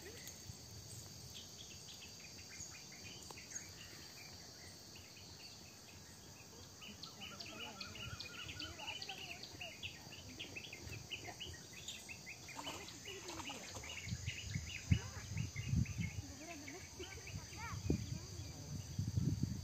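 Insects trilling steadily, with a run of rapid high chirps through the middle and low thumps near the end, which are the loudest sounds.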